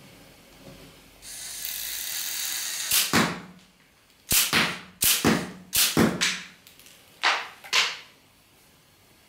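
A Lego Technic motor whirs steadily for about two seconds, then the Lego tank's motorized gun fires five shots. Each shot is a sharp snap followed within about half a second by a second knock.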